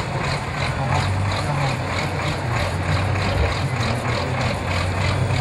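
Trial truck's engine running steadily at low revs as the truck crawls through soft sand, a low even hum with a light regular ticking about three times a second.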